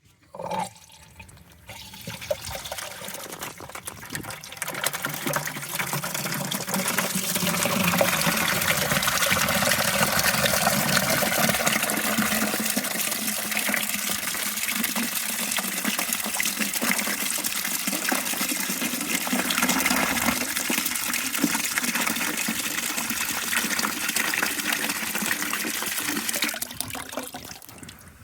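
Water pouring into a bucket for poultry drinking water. It starts about two seconds in, builds to a steady rush, and stops near the end.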